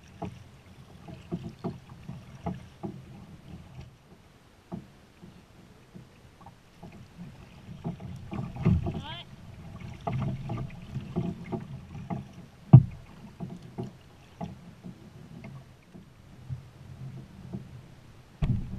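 Kayak paddling on calm water: paddle blades dipping and splashing, with water slapping against the plastic hull of a Pelican kayak. There are irregular small knocks throughout, and one sharp loud knock a little under thirteen seconds in.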